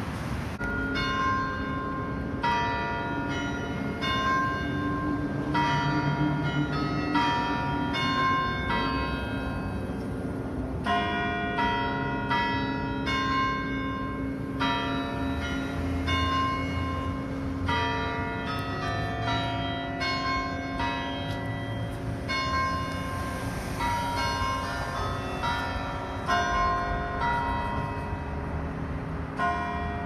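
Church bells ringing: several bells of different pitches struck in quick, overlapping succession, starting about a second in.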